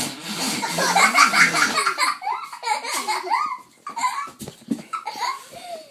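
Children laughing in a string of giggles and belly laughs, densest and loudest in the first two seconds, then in shorter bursts.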